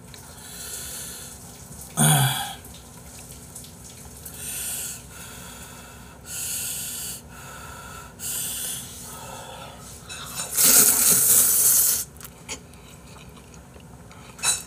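A person eating spicy instant stir-fried noodles: a series of short slurps and sharp breaths through the mouth, with one longer, louder slurp about three-quarters of the way through.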